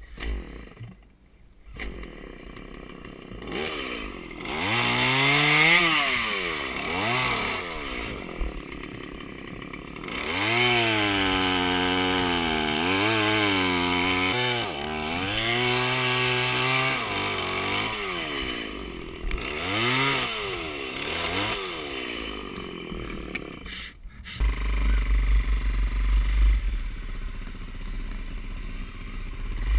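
Two-stroke chainsaw cutting through a fallen log, its engine revving up and dropping back over and over as the throttle is worked. About 24 seconds in it breaks off and a dirt bike engine runs low and steady.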